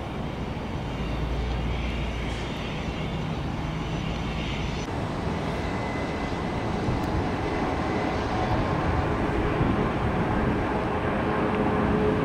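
Jet engine noise. A business jet taxiing for the first few seconds, then an Airbus A321 on its takeoff roll, its twin engines at takeoff power and growing steadily louder, with a steady fan whine over the roar.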